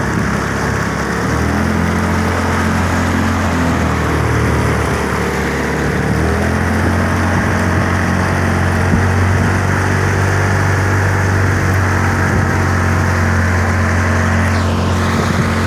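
Outboard motor of a small motorboat running under way, its note shifting about a second and a half in and again about six seconds in, over the rush of water from the boat's wake.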